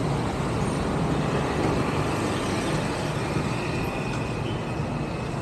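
Steady wash of city street traffic noise from cars and motorbikes, with no single vehicle standing out.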